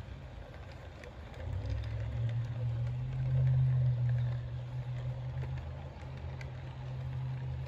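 HO-scale model freight train rolling past on sectional track: a low rumble of wheels and running gear with a few light clicks. It swells about a second and a half in, is loudest around the middle as the boxcars pass close, then eases as the caboose goes by.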